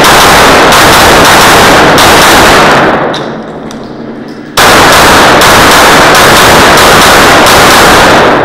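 Glock 34 9mm pistol firing rapid strings of shots, loud enough to overload the recording, in two bursts with a break of about a second and a half near the middle. The shots echo in an indoor range.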